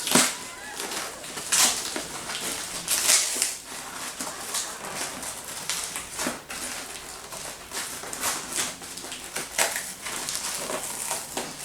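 Cardboard box being torn and cut open by hand, with irregular bursts of ripping and crumpling cardboard and packing tape.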